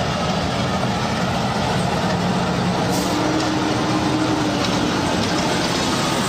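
Heavy vehicle engine running steadily, with a faint steady tone in the middle.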